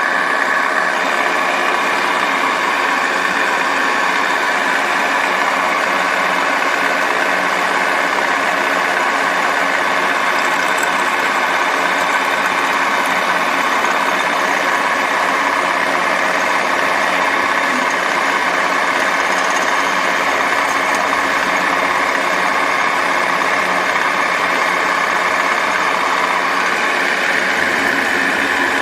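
Milling machine running steadily, its carbide end mill cutting out a worn guide bore in a brake caliper, with an even mechanical whine.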